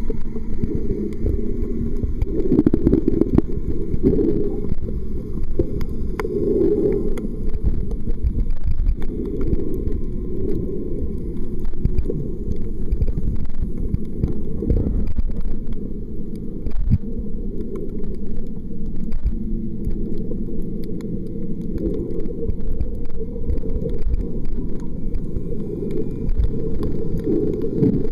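Muffled, steady low rumble of water heard through a waterproof camera's microphone while it is submerged, with a few faint clicks.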